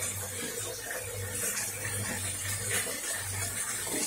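Kitchen faucet running a thin steady stream into a stainless-steel sink, with a low hum underneath.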